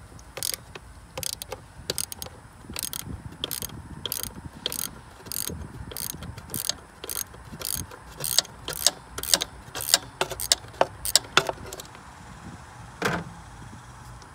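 Socket ratchet wrench clicking in short bursts, about two strokes a second, as a bolt is turned with a deep socket; the strokes get louder in the second half. One duller clunk near the end.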